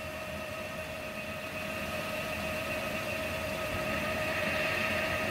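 Industrial Hobbies CNC square column mill running a test program without cutting: spindle spinning and table feeding at 40 inches per minute. A steady whine of several tones over a hum, growing gradually louder.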